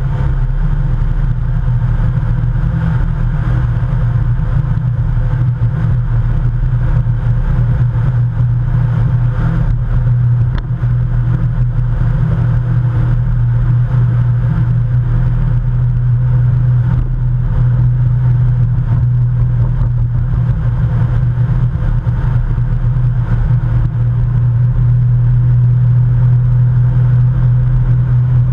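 Bass boat's outboard motor running under way at a steady cruising speed, a constant engine note with a rough low rumble under it.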